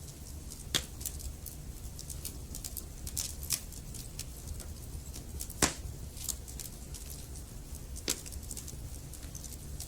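Wood fire crackling in a fireplace: a steady low rumble of burning logs under many small crackles, with a few sharper pops, the loudest a little over halfway through.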